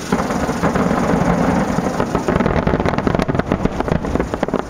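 Aerial firework shells bursting in a rapid barrage, the bangs and pops running together into dense crackling over a low rumble. It gets suddenly louder right at the start.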